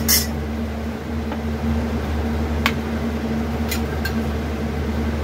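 A steady machine hum with a low drone runs throughout. Over it, a steel spatula clicks against an iron kadhai a few times while stirring a bay leaf in hot oil.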